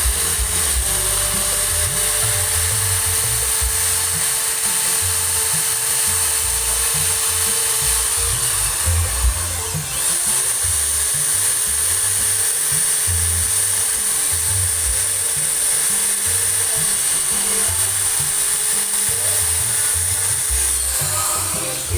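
Small handheld electric grinder grinding down the welded-on teeth of a motorcycle's front sprocket shaft, levelling the gaps between them. It runs steadily, and its whine sags twice, about halfway through and again near three-quarters, then picks back up.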